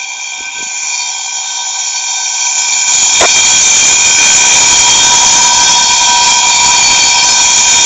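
A homemade 9-volt alarm with a Pringles can as its sounding body, giving off a steady, shrill, continuous buzz made of several high tones. There is a click about three seconds in, after which it is louder.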